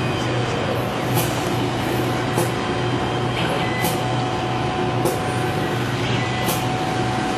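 Automatic soldering machine running: a steady low hum under a bed of mechanical noise, with a short, high hiss repeating about every second and a half.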